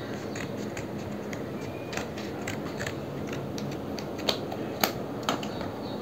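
Scissors snipping through a clear plastic blister pack: a run of small clicks and snips, with three sharper snips about half a second apart near the end.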